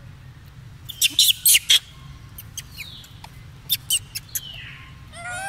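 High-pitched squeaks and sharp clicks from a golden snub-nosed monkey: a quick run of four loud clicks about a second in, scattered clicks and a couple of falling squeaks after, and a short wavering chirp near the end.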